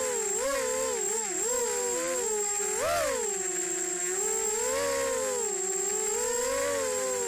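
Brushless motors and propellers of an EMAX Nighthawk Pro 280 race quadcopter whining in flight, heard through its onboard camera; the pitch rises and falls with the throttle, with a sharp surge about three seconds in. A steady high-pitched tone runs underneath.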